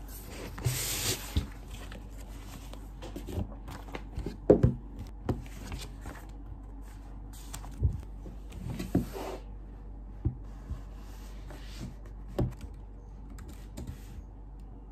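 Sheets of paper and a cardboard folder being handled and laid out on a desk: paper rustling about a second in, then scattered light knocks and taps against the desktop.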